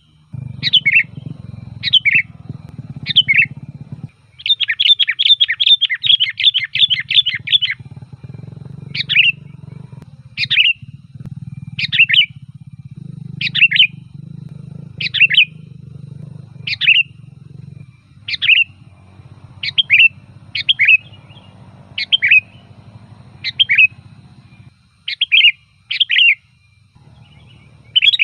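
Sooty-headed bulbul (kutilang) calling: short, sharp notes repeated about every second and a half, loud and lively. About four seconds in there is a fast run of about ten quick notes.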